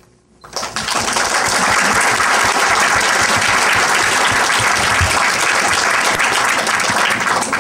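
Audience applauding, starting about half a second in and then holding steady.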